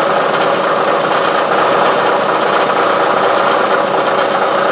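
Vertical milling machine cutting aluminum with a 1-inch end mill at 800 RPM, fed at 3/4 inch per minute: a steady machining noise of the cutter chewing through the stock.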